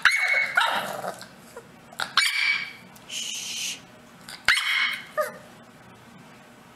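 English bulldog puppy barking up at its owner, four short high barks in the first five seconds, then falling quiet.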